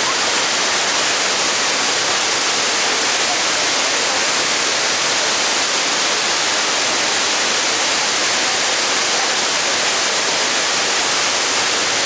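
Water pouring through a concrete dam's open spillway gates: a loud, steady, unbroken rush.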